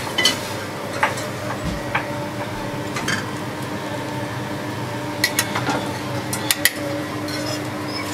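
Metal spoon tapping and scraping on a porcelain plate as puree is spread, giving a few light clinks at irregular intervals, over a steady background hum.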